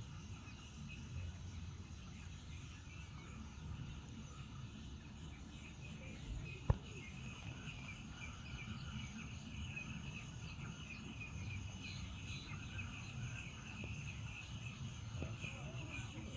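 Steady chorus of insects, a continuous high shrill trill, over a low background rumble. A single sharp click about a third of the way through.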